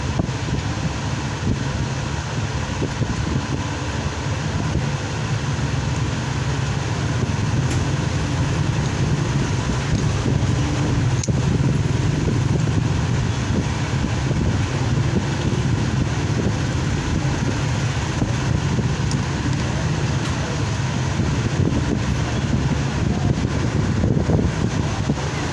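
Steady din of road traffic and motor engines in the background, a constant low rumble with no single event standing out.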